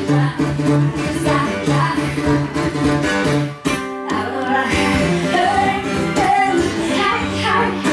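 Live acoustic guitar playing a quick, rhythmic picked pattern that breaks off briefly a little under four seconds in, then resumes with a held low note and a woman's voice singing over it.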